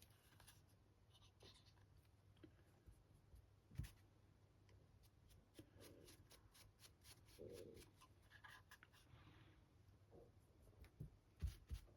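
Faint, rapid scratching of a stiff dry brush's bristles being scrubbed over the raised surfaces of a resin 3D-printed figure, with a soft knock about four seconds in and two more near the end.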